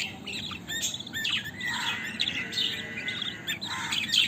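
Budgerigars chirping and chattering: many short, quick arched tweets with a couple of harsher, longer chattering stretches.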